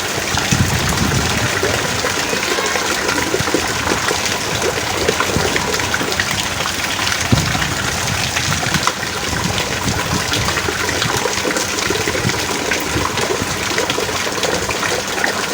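Heavy rain pouring steadily: a dense, even hiss of water with countless individual drops striking.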